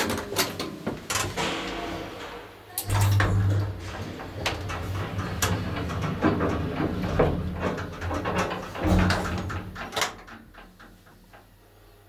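1963 HIRO elevator with no car doors travelling: a run of clicks and clunks from the car and its machinery over a low motor hum, which swells about three seconds in and again near nine seconds. It dies down near the end as the ride ends.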